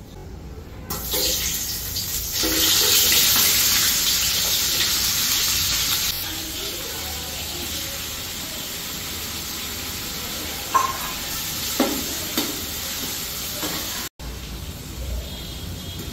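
Food sizzling in hot oil in a cooking pot. It starts suddenly about a second in, is loudest for a few seconds, then settles to a steadier sizzle, with a few sharp knocks near the end.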